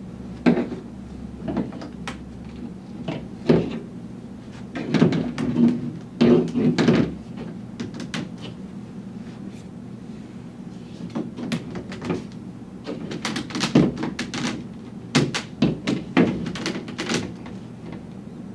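Plastic pipe pieces and fittings of a model doll chair knocking and clicking against each other and the tabletop as they are handled and pushed together, in irregular clusters of sharp knocks, busiest about five to seven seconds in and again near the end.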